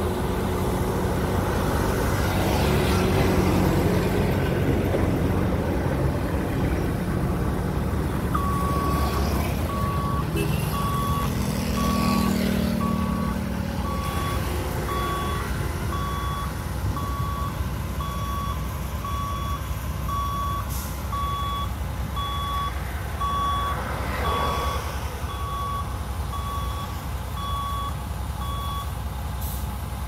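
Reversing alarm on a construction vehicle beeping evenly, about one and a half beeps a second, starting about eight seconds in and stopping just before the end. Under it runs the low rumble of diesel engines from the bulldozer and heavy trucks, swelling as trucks pass early on and around twelve seconds in.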